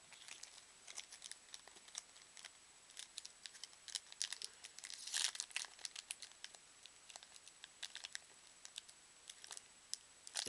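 Trading-card pack packaging crinkling and tearing as it is picked at by hand. It comes as a scatter of small, sharp crackles, with the loudest flurry a little past halfway.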